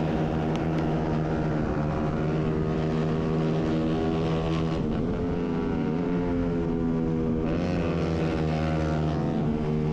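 Racing motorcycle engine of a 250 cc class bike heard onboard, running hard at high revs with a steady wind hiss on the microphone. The pitch dips briefly about halfway through and then climbs again.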